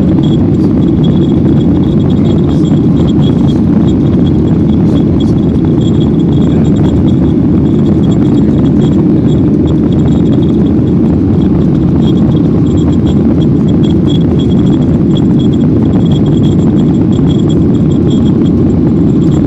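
Steady roar inside the cabin of a Boeing 737-800 climbing after takeoff: its CFM56 turbofans and the rushing air heard from a window seat, with a faint high whine on top.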